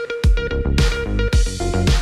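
Electronic dance background music with a steady kick drum about twice a second under synth chords.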